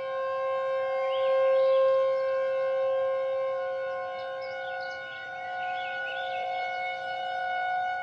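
Federal Signal outdoor warning siren sounding a steady chord of several held tones, swelling and easing slightly in loudness. Faint short high chirps come in over it from about a second in.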